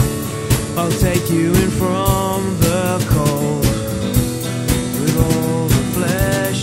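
Live band music: a drum kit keeping a steady beat with cymbals, and a strummed acoustic guitar.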